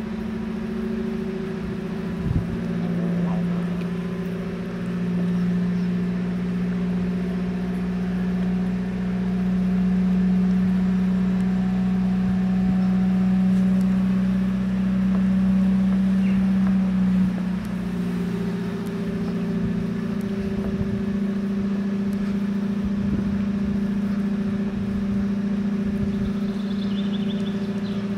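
A steady, low engine-like drone holding one pitch with an overtone. It shifts slightly in pitch and gets a little quieter about 17 seconds in. A single sharp knock sounds about two seconds in.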